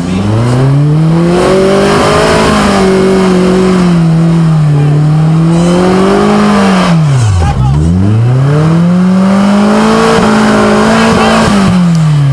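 Suzuki Samurai's 2000cc engine revved hard and held high under load as the 4x4 crawls up a steep muddy gully. The revs drop away sharply about seven and a half seconds in, rise again quickly, and fall off near the end.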